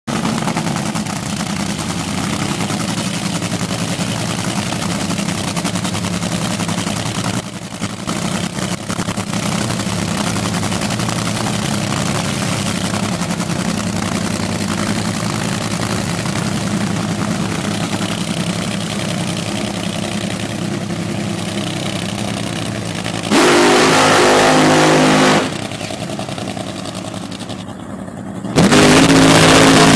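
Top Fuel dragster's supercharged nitromethane V8 idling with a steady rumble. Then come two very loud full-throttle blasts of about two seconds each, one about three-quarters of the way through and one near the end, as in a burnout.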